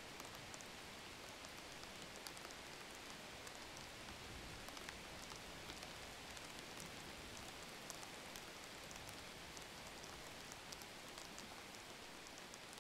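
Faint steady hiss with many light crackles scattered through it, sounding like rain falling on a surface.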